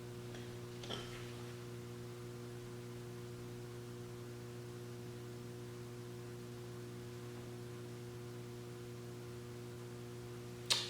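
Steady electrical mains hum, with a faint tick about a second in and a sharp click just before the end.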